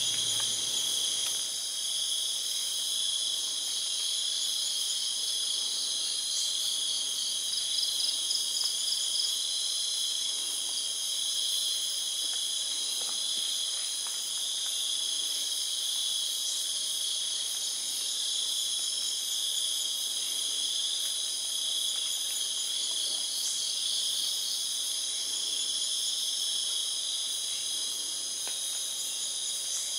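Chorus of night insects: several steady, high-pitched drones at once, with a pulsing trill coming through twice.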